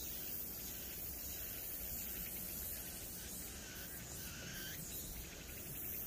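Outdoor ambience: steady high-pitched insect chirring over a low rumble of wind.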